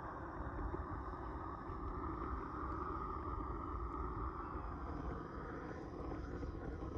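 Propane torch wand burning steadily with a constant rushing noise, its flame held to an iced-up car door to thaw it.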